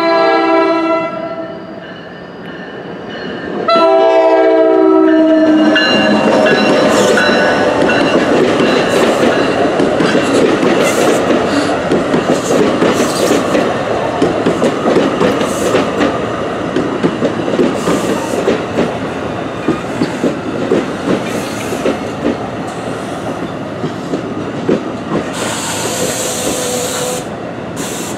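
NJ Transit ALP-46A electric locomotive's horn sounding two blasts, the second about four seconds in, followed by the train of Multilevel coaches rolling past with a steady rumble and wheels clicking over rail joints. A burst of hissing comes near the end.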